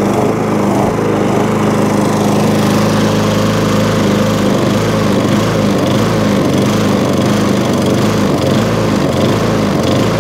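Tecumseh engine of an MTD push lawnmower running steadily, breathing through only a thin piece of foam in the air filter housing.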